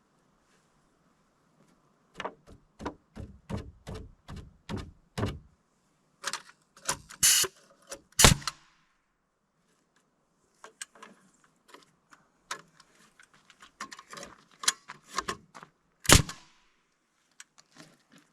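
Hammer striking nails into wooden framing: a run of about eight evenly spaced blows, then a few heavier blows, lighter taps, and one last loud blow near the end.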